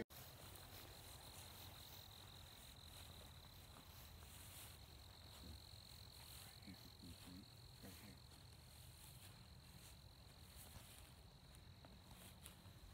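Quiet field ambience with a faint, steady high-pitched trill of crickets running without a break.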